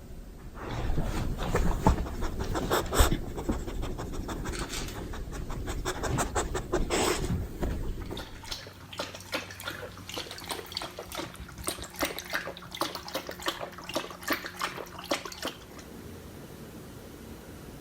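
A beagle panting in quick, rhythmic breaths, which stop near the end.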